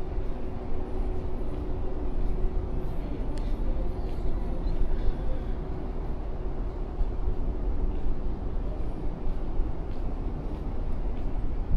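Steady low rumbling ambience aboard a docked cruise ship, uneven in loudness. A faint steady hum fades out about four seconds in, and there are a few faint clicks.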